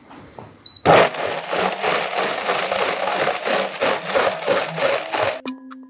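High-speed blender switched on after a short beep, running at full speed and blending a thick mix of soaked cashews, dates and water, then cut off abruptly near the end.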